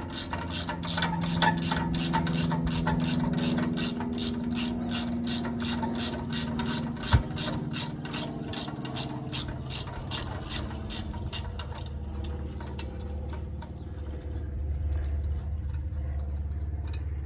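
Hand ratchet wrench clicking in a steady rhythm, about three clicks a second, while backing off the nuts that hold a Jeep's rear axle shaft in; the clicking stops about twelve seconds in. A single sharp knock comes around seven seconds in.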